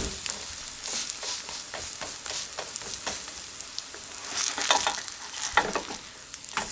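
Vegetable jeon (Korean pancakes) sizzling in oil in a non-stick pan, with a wooden spatula scraping the pan as the pancakes are pressed and turned. The scraping is strongest about four to six seconds in.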